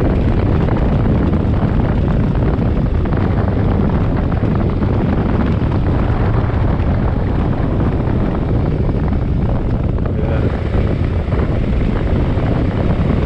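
Motorcycle being ridden at road speed, with wind rushing over the camera microphone and the engine running underneath, steady throughout.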